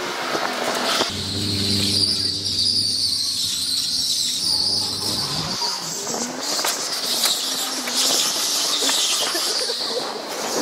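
Electric go-kart at speed on an indoor track, its tyres squealing through the turns in a high, wavering screech. A low motor hum runs underneath for the first half and rises in pitch as it fades out.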